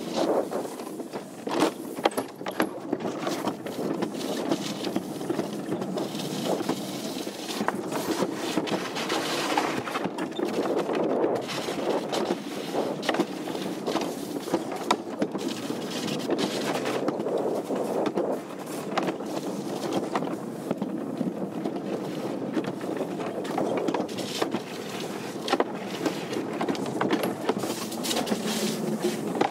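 Summer toboggan sled running fast down a trough-type track: a steady rumbling scrape of the sled in the channel, with frequent short clicks and knocks.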